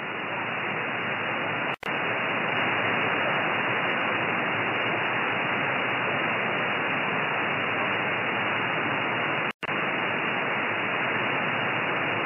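Steady hiss from an RTL-SDR receiver in upper-sideband mode on the 13 cm amateur band, with no signal on the channel. The noise is cut off at the 2.8 kHz filter. It swells over the first second or two and drops out twice, briefly, near 2 s and near 10 s.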